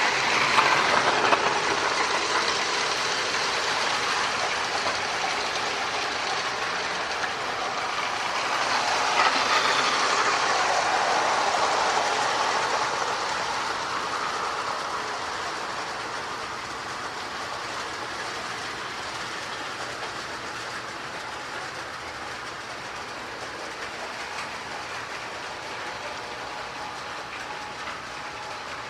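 Marx tinplate E7 diesel toy locomotive with a power-pull motor running on track: a steady motor whir with wheels rattling over the rails. It is louder about a second in and again around ten seconds in, then softer.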